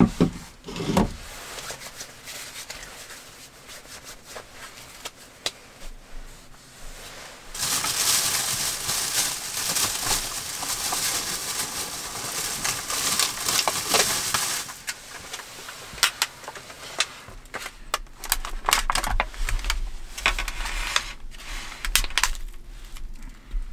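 Plastic food packaging being handled: loud rustling for several seconds a third of the way in, then sharp crackles and clicks as a clear plastic clamshell pack is opened and handled.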